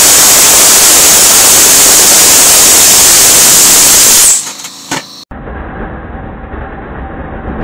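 Homemade rocket engine with a convergent-divergent nozzle firing at full power: a very loud, steady rushing hiss of supersonic exhaust for about four seconds, which then dies away quickly. After an abrupt change, a quieter, duller rushing sound of the engine burning follows, slowly growing louder.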